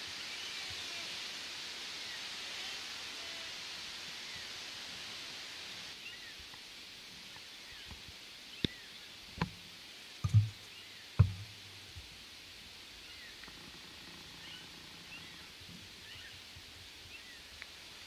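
Quiet outdoor woodland ambience with a steady hiss and faint scattered chirps. Around the middle come four or five sharp knocks and dull thumps in quick succession.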